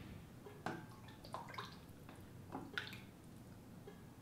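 Soup being ladled into a bowl: a few soft clinks of a ladle against the bowl, with broth dripping.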